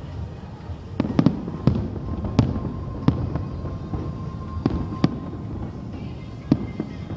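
Aerial fireworks shells bursting: about ten sharp bangs at irregular intervals, some in quick pairs, over a continuous low rumble.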